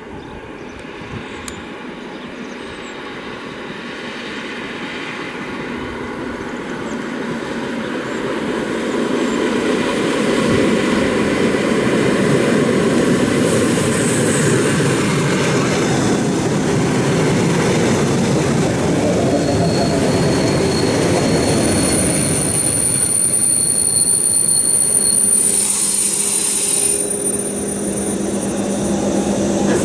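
ED2T electric multiple unit pulling into the platform and braking. The rumble of wheels on rail grows louder and then stays loud, with a high steady brake squeal in the second half and a short hiss of air near the end as it comes to a stop.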